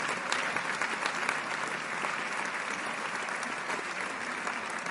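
Large theater audience applauding: a dense, steady wash of many hands clapping.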